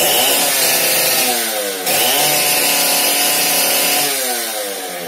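Small petrol engine revved twice: it rises to high speed and holds, drops back, then revs up again and holds for about two seconds before falling away near the end.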